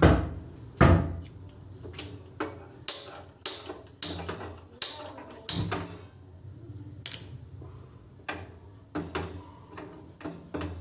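Kitchen utensils being handled on a countertop: a series of irregular sharp knocks and clatters, roughly one every half second to a second.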